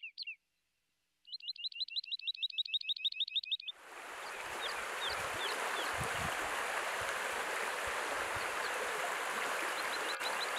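A bird's rapid run of repeated chirps, about eight a second. From about four seconds in, the steady rush of a shallow stream running over stones takes over, with scattered bird chirps above it, and the rapid chirping starts again near the end.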